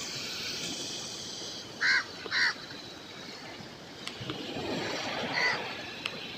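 A bird calling harshly: two loud calls about half a second apart roughly two seconds in, and a fainter one near the end, over a steady rushing background.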